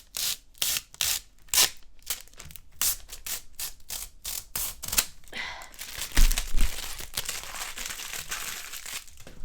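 Low-profile mechanical keys of a Logitech G915 keyboard being pressed: a quick, irregular run of sharp clicks. After about five seconds this gives way to a few seconds of rustling and crinkling, with a dull thump partway through.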